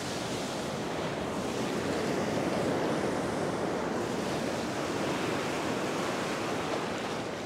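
Ocean surf breaking and washing through the shallows in a steady rush, swelling a little a couple of seconds in.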